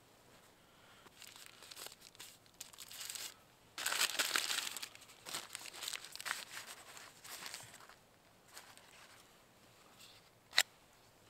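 Paper and cloth food wrappings rustling and crinkling as they are handled and opened, in uneven bursts that are loudest about four seconds in. Near the end comes a single sharp click as a folding knife is opened.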